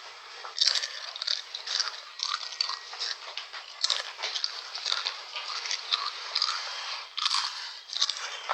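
Potato chips being crunched and chewed: a dense run of irregular crackling crunches.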